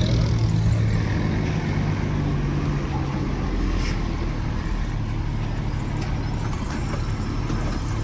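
Truck engine running steadily at low speed, a low even rumble, heard from the cab; a single faint click about four seconds in.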